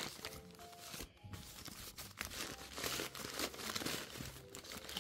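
Crumpled newspaper packing being torn and pulled open by hand, crinkling irregularly, with faint music underneath.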